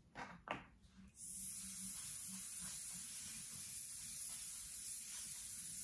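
Aerosol can of makeup setting spray hissing in one long, steady spray onto the face, starting about a second in after a few small handling sounds; the can is running low.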